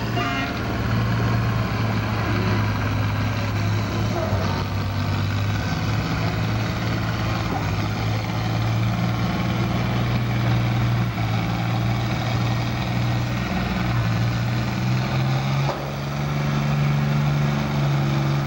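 International Harvester farm tractor engine running steadily at a low speed, then revving to a higher speed about sixteen seconds in.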